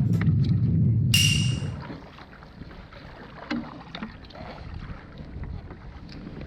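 Water lapping and sloshing against a kayak hull, with scattered small knocks and clicks. A loud low rumble fades out in the first two seconds, and a brief hissing rush comes about a second in.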